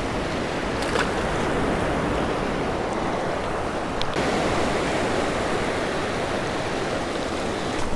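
Small surf breaking and washing over shallow sand flats: a steady rushing wash of water, with two faint clicks about one and four seconds in.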